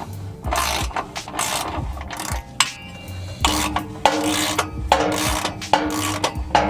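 Ratchet wrench clicking through repeated strokes, tightening exhaust bolts during a catback exhaust install.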